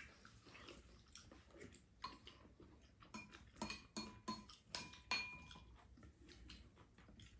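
Faint scrapes and clinks of spoons against ceramic bowls during a meal, with a few sharper ringing clinks around the middle.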